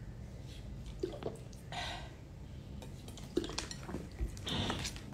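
Quiet handling at a table: drinking from a plastic water bottle and setting it down, with scattered light clicks and two short rustles.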